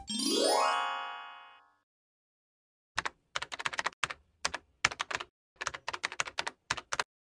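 A rising gliding-pitch sound effect that fades out over about a second and a half. After a short pause comes a keyboard-typing sound effect: quick clicks in short runs as a caption is typed out.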